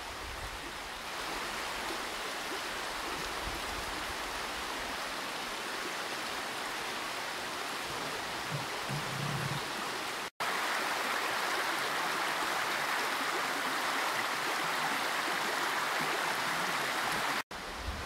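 A forest creek running steadily over stones, with two brief dropouts where the recording cuts, about ten seconds in and near the end. The water is a little louder after the first cut.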